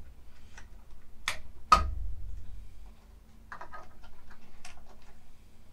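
Plastic cable connector being worked loose and pulled off a circuit board: a few sharp plastic clicks, the loudest a little under two seconds in, then a cluster of lighter clicks and rattles from handling the cable a few seconds later.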